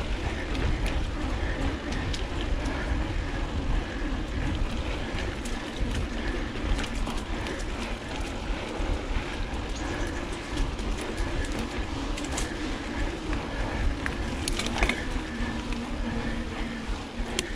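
Mountain bike rolling along a path of concrete slabs: a steady rumble and rattle of tyres and bike, with a few sharp knocks as it jolts over slab joints, and wind on the microphone.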